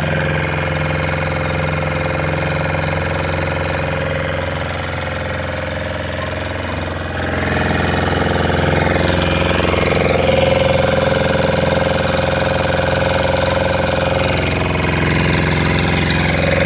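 Small fishing boat's engine running steadily underway, a little louder from about seven seconds in.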